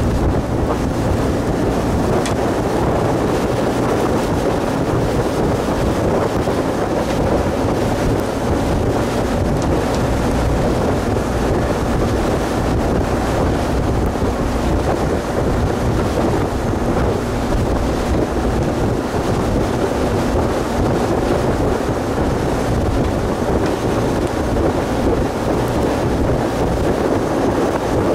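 Fishing boat under way: its engine running steadily, with wind noise on the microphone and water washing past.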